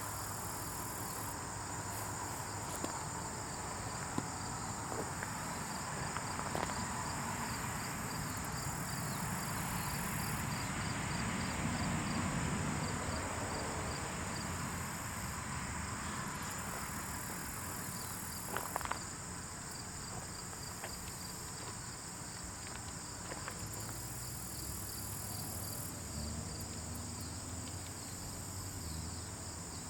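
Steady insect chorus, a high continuous chirring with a faster pulsing chirp just below it, over a soft low rumble that swells in the middle. A few small sharp ticks, the most distinct near the middle.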